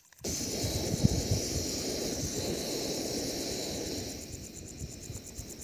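Instant coffee being beaten in a steel mug with a small spoon: fast, continuous scraping and clinking that eases off about four seconds in. Crickets chirp steadily throughout.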